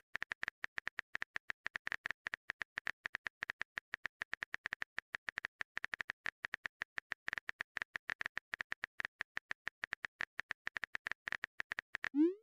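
Chat-app keyboard typing sound effect: a fast run of light clicks, about ten a second. Near the end comes a short rising pop, the sound of a new message appearing.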